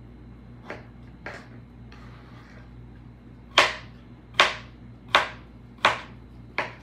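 Small serrated knife chopping cucumber on a plastic cutting board: two light knocks, then five sharp knocks of the blade hitting the board, about one every three quarters of a second, as each cut is pushed all the way through.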